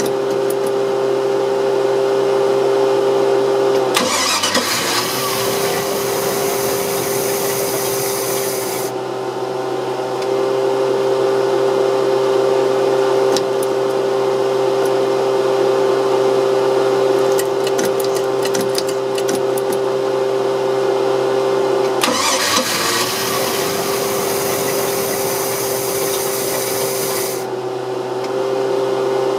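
OMC 5L marine V8 engine running with a steady drone. Twice, about four seconds in and again past the twenty-second mark, a loud hiss comes in for about five seconds while the engine note briefly sags and then recovers.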